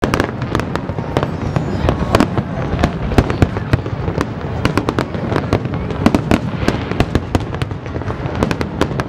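Fireworks display: aerial shells bursting in rapid, overlapping bangs, several a second, merging into a continuous din.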